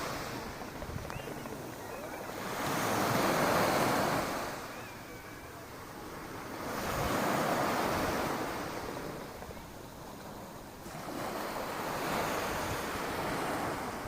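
Sea waves breaking and washing onto the shore, the surf swelling up and falling back three times, about every four to five seconds.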